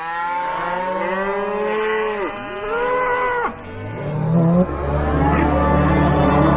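Long, drawn-out wavering calls, several overlapping, their pitch bending up and down. A loud low drone joins about four seconds in.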